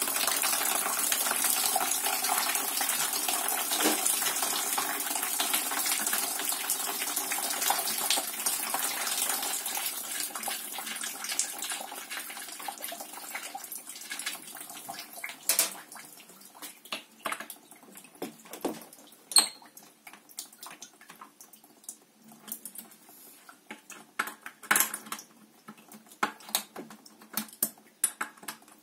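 Water rushing out of a 50-litre electric water heater as it is drained, a loud, even rush that dies away over roughly the first half. After that come scattered metal clicks and clinks of a wrench working the nuts on the heating-element flange.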